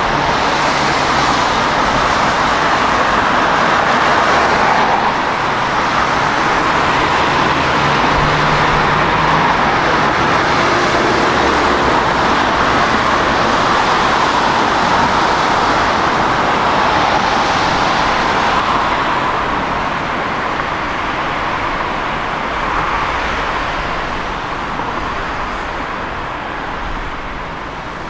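Budapest M1 (Millennium Underground) metro train running through the tunnel: a loud, steady rumble and rush of wheels and car, growing somewhat quieter over the last several seconds.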